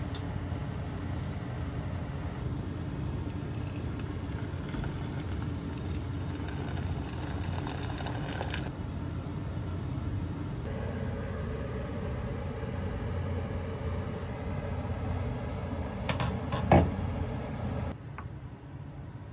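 A pot of noodles boiling on a gas stove, with a steady low rushing noise. A few sharp knocks come near the end, the loudest about three-quarters of the way through, and then the rushing drops to a quieter hum.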